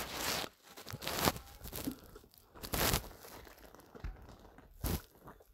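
Clear plastic bag of gummy candies crinkling in several short bursts as a hand handles it.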